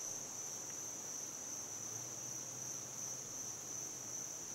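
Faint, steady, high-pitched insect chorus trilling without a break.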